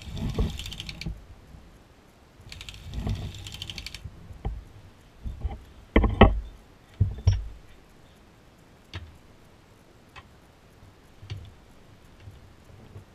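Hand-cranked circular sock knitting machine (New Zealand Auto Knitter with cylinder and ribber dial) clattering rapidly as it is turned, in two short bursts. After that, a handful of separate metal clunks and clicks, the loudest about six seconds in, then a few faint ticks.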